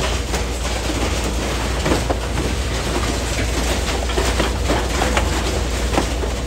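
Industrial car shredder running and tearing up scrap metal: a loud, steady low rumble with irregular clanks and bangs of metal striking metal.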